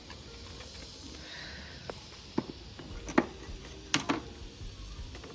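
A handful of sharp knocks and clicks of utensils against a cooking pot over a faint steady background. The loudest comes about three seconds in, and a quick pair follows about a second later.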